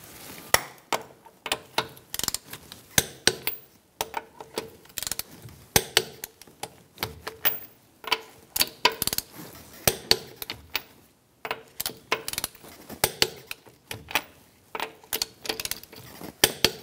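Torque wrench clicking in short runs of sharp ratchet clicks as the wheel's lug nuts are tightened to 85 ft-lb in a star pattern.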